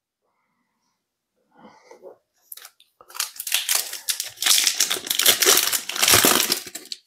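Plastic wrapper of a Panini Prizm basketball card pack crinkling as it is handled and torn open by hand. There are faint handling sounds at first, then steady loud crinkling from about three seconds in until near the end.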